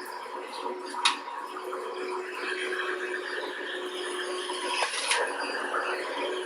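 Direct-air upright vacuum cleaner running steadily with a constant motor whine while it sucks up aspen shavings, which rattle through the fan. Sharp clicks come about a second in and again near five seconds.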